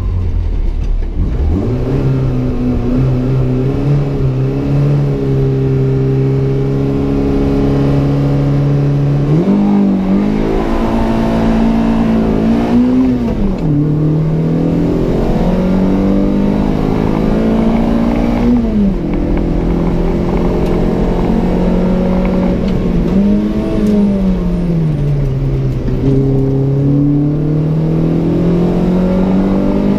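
Peugeot 106 Rallye S1's 1.3-litre eight-valve four-cylinder engine, with a 4-2-1 manifold and Pugsport exhaust, heard from inside the cabin. It runs at steady revs for several seconds, then rises and drops in pitch several times as the gears change and the driver lifts for corners, and it climbs steadily near the end.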